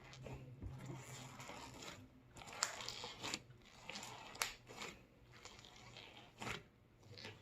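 Hands kneading putty slime packed with foam beads: a faint crunching and crackling with a few sharp snapping pops as the slime is pulled and pressed.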